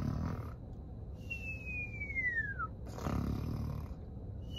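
A woman fake-snoring as a joke: a rough snoring breath in, then a long whistle falling in pitch on the breath out, repeated twice like a cartoon snore.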